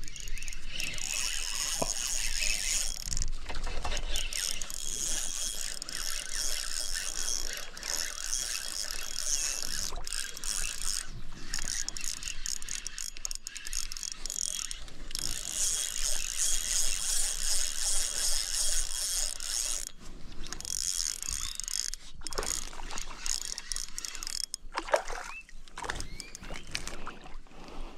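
Spinning reel being cranked to retrieve line, its gears whirring with a fine ratcheting tick, in several long spells with brief pauses between them.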